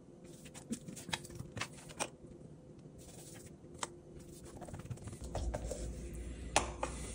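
Scattered light taps and clicks from a metal spoon and a hand sprinkling and patting seasoning onto a whole snapper on a plastic cutting board, the sharpest click near the end. A low steady hum comes in about five seconds in.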